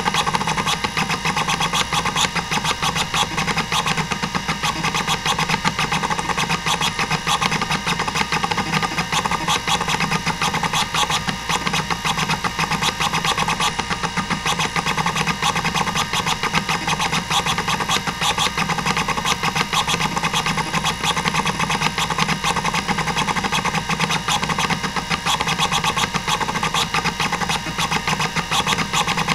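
Hitachi DK505-2 26MB stepper-motor hard drive seeking at random during a seek test: a fast, unbroken run of head-stepping clicks over the steady whine of its spindle. It is the normal seek noise of a drive in good health.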